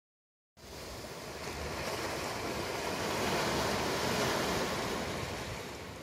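Small sea waves washing in onto a gravelly beach: a steady surf rush that starts about half a second in, swells to its loudest midway, then eases off as the wash spreads up the shore.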